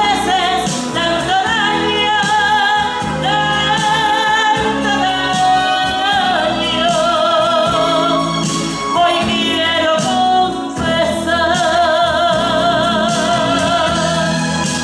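A woman singing through a microphone, holding long wordless notes with a wide vibrato, over instrumental accompaniment.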